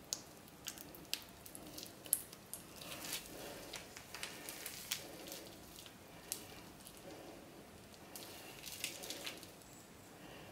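Faint squishing of a plastic piping bag being squeezed as thick soap frosting is pressed out through the nozzle, with scattered small clicks and crackles of the plastic bag.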